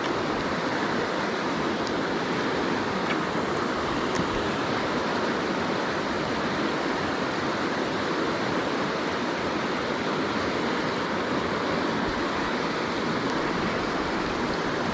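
River water flowing, a steady rush that holds even throughout.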